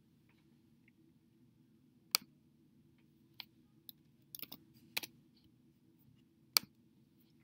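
Computer mouse clicks and a couple of keyboard keystrokes: about six sharp, irregularly spaced clicks, with a quick pair of them a little past the middle. A faint, steady low hum lies underneath.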